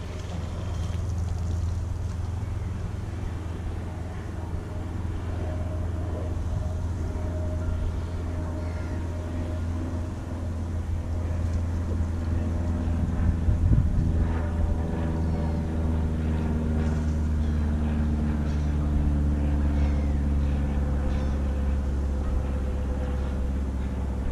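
A steady engine drone: a low hum with several pitched tones that slowly fall in pitch through the second half. A short knock about halfway through.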